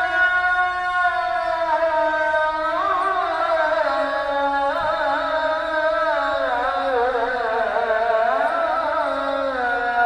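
A solo voice chanting slow, long-held notes with wavering ornaments, the melody drifting gradually lower over the phrase.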